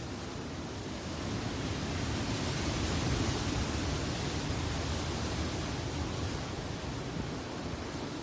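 Ocean surf breaking against a rocky shore: a steady wash of rushing water that swells as a wave crashes, loudest about three seconds in, then eases back.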